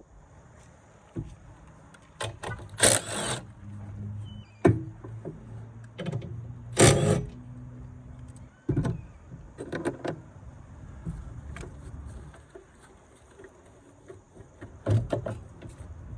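Hand tools and metal parts clanking and rattling during work on a car battery, with two louder scraping bursts about three and seven seconds in.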